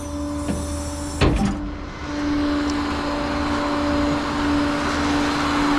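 Tow truck running with a steady drone and a held hum; the noise grows louder about two seconds in. A single knock comes about a second in.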